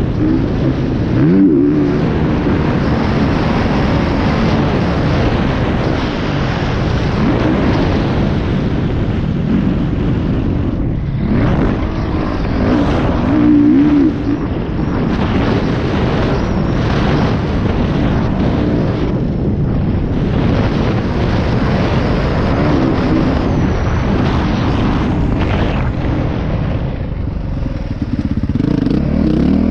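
Dirt bike engine revving up and down under a rushing noise as the bike is ridden hard over a motocross track. The engine briefly drops off the throttle a couple of times, and quietens near the end as the bike slows to walking pace before picking up again.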